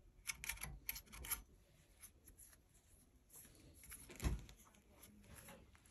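A quick cluster of light metallic clicks and scrapes from a steel pin punch worked in a barrel-pin hole in a muzzleloading rifle's wooden stock, followed about four seconds in by a single dull thump.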